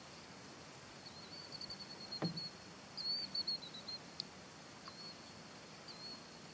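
Small birds chirping in short high trills over a faint steady hiss, with one sharp knock about two seconds in.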